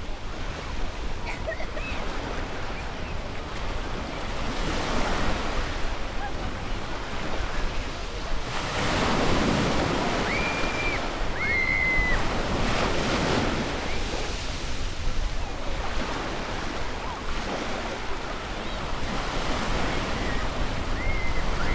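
Surf washing onto a beach in slow swells, with wind on the microphone. Children's voices come through a few times as short, high calls.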